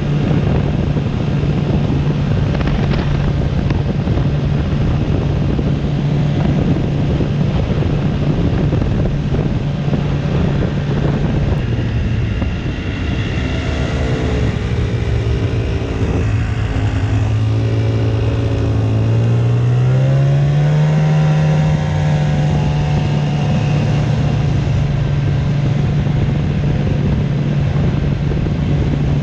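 Arctic Cat Bearcat 570 snowmobile engine running steadily under way. Its note drops about halfway through and climbs back a few seconds later as the machine slows and then speeds up again.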